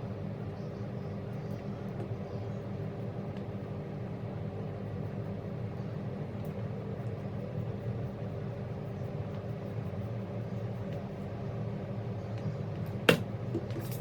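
Steady low mechanical hum with a sharp click near the end.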